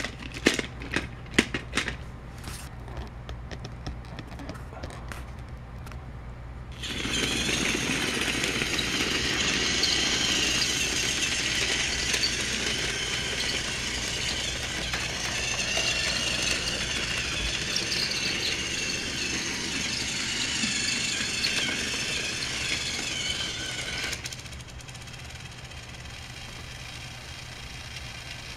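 Battery-operated Thomas the Tank Engine toy train running on plastic track: a steady, rattling motor-and-wheel whir that comes in loud about seven seconds in and falls away about twenty-four seconds in. A few sharp clicks sound in the first couple of seconds.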